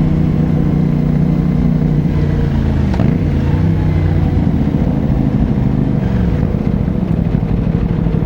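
CFMOTO 450SR-S parallel-twin engine running under way, its pitch dipping briefly about three seconds in and then falling slowly as the revs drop.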